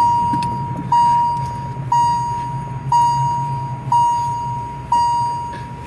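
A car's warning chime dinging about once a second, each ding a single steady high tone that starts sharply and fades, over a steady low hum.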